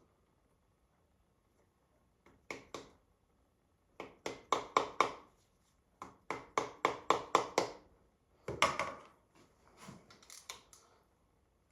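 Hand tools working on an engine: bursts of sharp metallic clicks, about five a second, with short pauses between the bursts.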